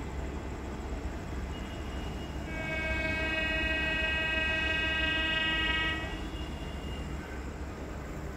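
Train horn sounding one long steady blast of about three and a half seconds, beginning about two and a half seconds in, over a steady low background rumble.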